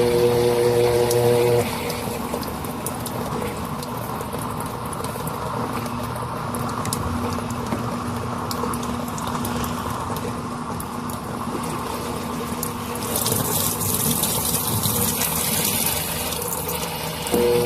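Electrolux Turbo 10 kg washing machine at work: a pump motor hums steadily and stops about a second and a half in, then water runs and sloshes inside the machine, with a stronger rush of water a little before the end. The hum starts again just before the end.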